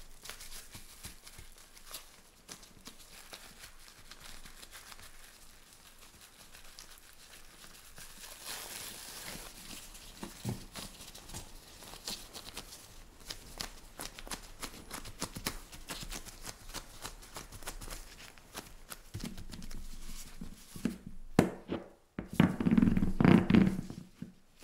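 Soft rustling and crinkling of plastic wrap and dough as gloved hands press tart dough into a fluted metal tart tin. Near the end, louder rolling and pressing as a wooden rolling pin is rolled across the tin's rim, trimming off the excess dough.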